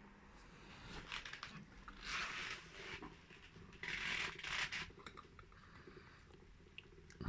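Slime being squished and worked by hand: three noisy squishing bursts full of fine crackles, the loudest about four seconds in, with smaller crackles between.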